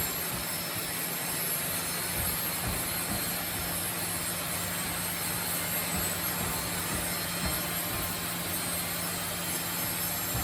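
Sawmill machinery running steadily: an even rushing din with a constant low hum, and a few faint low knocks.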